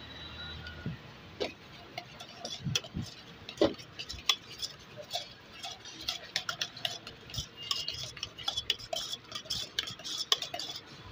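Steel spoon stirring a wet vegetable-and-mayonnaise filling in a stainless steel bowl, with rapid, irregular clinks and scrapes against the bowl's side that grow busier after about five seconds.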